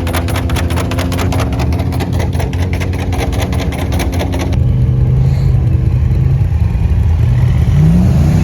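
Off-road truck engines running, with a fast regular ticking over the first half. About halfway the sound changes abruptly to another engine, which revs up near the end.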